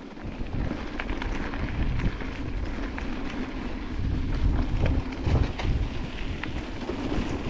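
Wind rumbling on the microphone over the rolling noise of a mountain bike's tyres on a rough trail, with a few sharp ticks scattered through.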